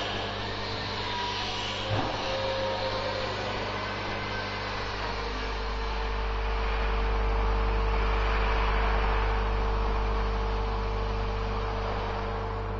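Vibratory bowl feeder running with a steady electric hum, and a rattling hiss of small plastic medical-device parts shaking around the steel bowl and along the feed track; a single click about two seconds in.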